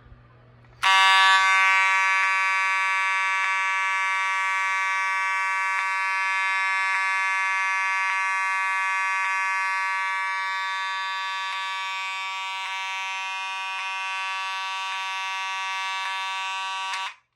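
Vintage Faraday mechanical fire alarm horn sounding one continuous, loud buzzing tone, with a faint tick about every second and a bit. It starts about a second in and cuts off abruptly near the end.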